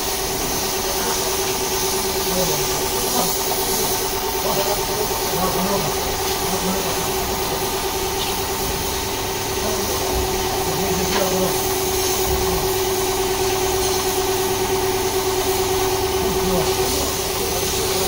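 Compressed air hissing steadily from a gravity-feed spray gun as paint is sprayed onto a car fender, over a steady machine hum.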